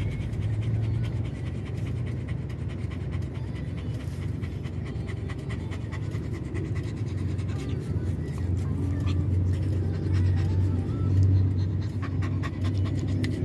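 Dog panting rapidly and steadily, over a steady low hum: the dog is stressed by the noise of a tyre change outside.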